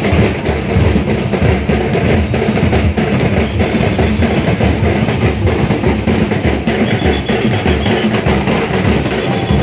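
Loud drumming with a steady, driving beat, the kind played in a Muharram tazia procession.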